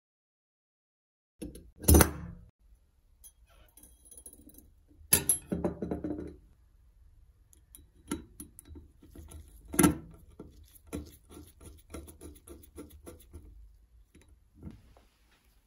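Two sharp knocks of sharpener parts set down on a wooden workbench, then a small screwdriver turning a screw into the sharpener's painted duralumin housing: a run of light clicks and scrapes, one of them louder.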